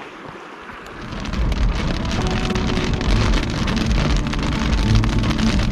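Heavy rain beginning about a second in, a loud dense patter with a deep low rumble underneath, after a softer rush of river water.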